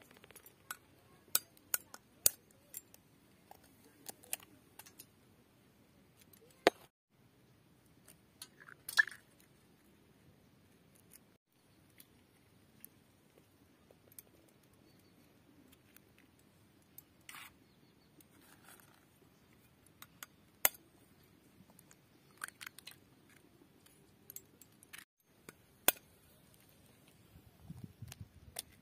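Raw hen's eggs being cracked one at a time with a knife blade and emptied into a steel bowl: single sharp taps and cracks of eggshell, one to a few seconds apart.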